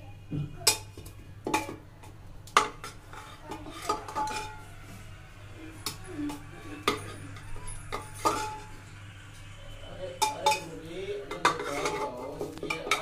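Metal spatula knocking and scraping inside an aluminium pressure cooker, with irregular sharp metallic clanks as boiled sweet potatoes are lifted out onto a steel plate.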